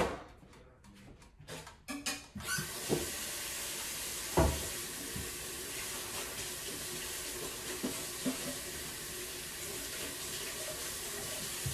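Kitchen tap running steadily as a knife is rinsed clean under it, starting a couple of seconds in and shut off abruptly at the end. A few light clicks come before the water, and a single knock sounds shortly after it starts.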